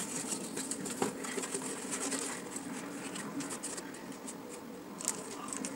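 Cardboard and adhesive tape being handled and pressed by hand on a cutting mat: a quick run of rustling, scratching and light ticks as the cardboard boat hull is turned and the tape smoothed down.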